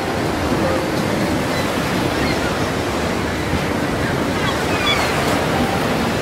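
Steady rush of wind and choppy, wind-driven waves.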